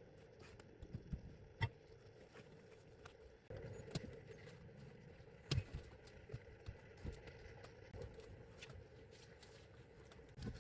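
Faint, irregular clicks and light knocks over a low steady hum.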